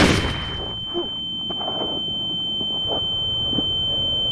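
The tail of a pistol shot dies away, then a single steady high-pitched ringing tone holds on: the film's ear-ringing effect after the gunshot. A few faint knocks sound underneath.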